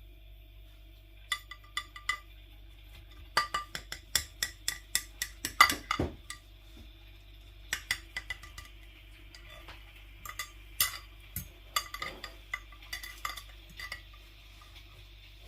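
Utensils clinking and scraping against a dish in irregular runs of quick taps, each with a brief ring. The loudest knock comes a little before the middle.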